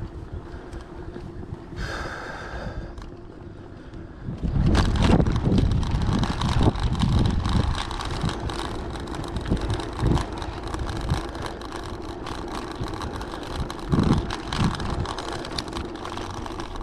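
Riding a bicycle on an action camera: wind buffeting the microphone over the rolling rumble of the tyres on the path, getting much louder about four seconds in.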